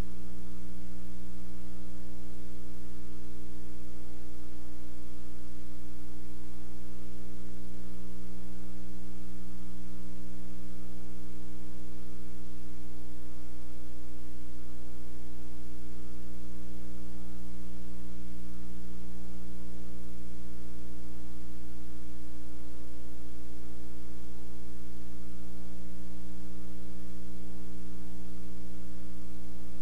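Steady electrical mains hum: a low tone with a stack of overtones and a faint hiss, unchanging throughout, with no programme sound over it.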